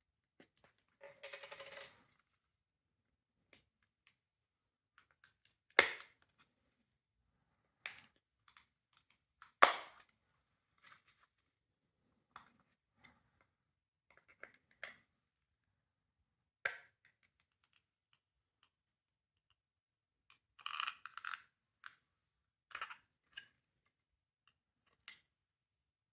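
Small hard parts and tools being handled during disassembly: scattered clicks and clinks, a short scraping rattle just over a second in, two sharper knocks about 6 and 10 seconds in, and a quick run of clicks around 21 seconds.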